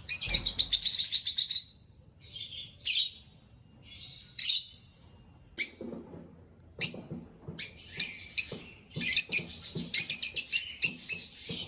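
A flock of African lovebirds chirping with shrill, high calls: a dense burst at first, scattered single calls in the middle, then busy chattering again over the last few seconds.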